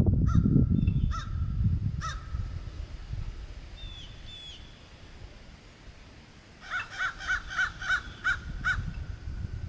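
Crows cawing: a few single caws in the first couple of seconds, then a quick run of about eight caws from about seven seconds in. A smaller bird chirps faintly in between, and a low rumble fades out over the first two seconds.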